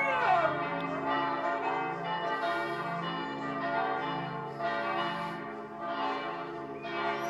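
Church bells pealing, several bells with overlapping steady tones and a fresh strike about once a second. A Siberian husky's howl glides and trails off in the first half second.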